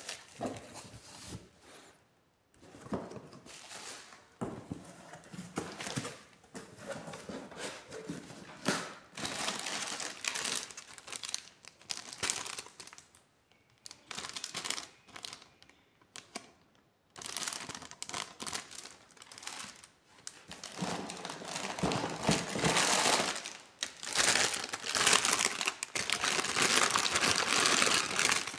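Plastic packaging crinkling and tearing by hand in irregular bursts: stretch wrap pulled off a cardboard box and plastic bags of parts handled. The crinkling is loudest and most continuous near the end.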